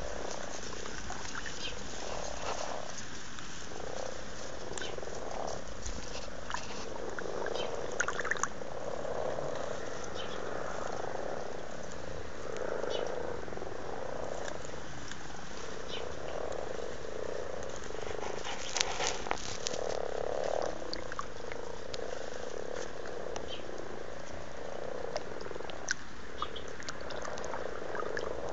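Chorus of common frogs giving their low, soft croaking calls continuously and overlapping: the mating chorus of frogs gathered in a pond to breed. A few brief clicks stand out briefly.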